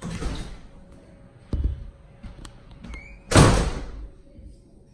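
Sliding glass patio door sliding and banging shut, the loudest bang about three and a half seconds in, with a softer thud about a second and a half in.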